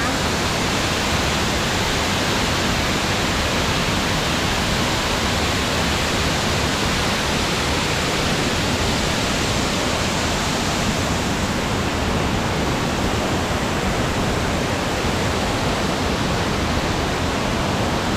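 Waterfall heard close up: a steady, loud rush of falling water.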